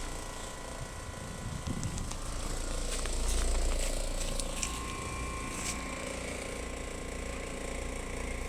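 2023 Ducane central air conditioner running steadily: a constant low hum with a few steady tones above it.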